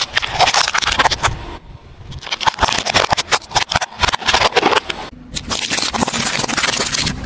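Hard plastic cracking and snapping as a car tyre rolls over it and crushes it, a rapid run of sharp cracks. A steadier grinding noise takes over for about the last two seconds.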